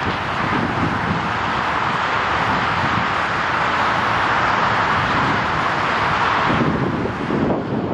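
Boeing 777-300ER's two GE90-115B turbofans at take-off thrust during the take-off roll: a steady jet roar that eases a little near the end, with wind buffeting the microphone.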